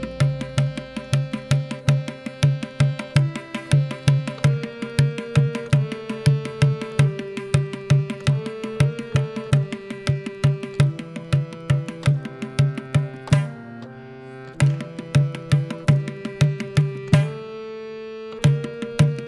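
Harmonium playing a repeating lehra melody in held notes while Indian hand drums keep up a steady run of strokes, with a low beat about twice a second. The drumming stops twice for about a second, about 13 and 17 seconds in, leaving the harmonium alone.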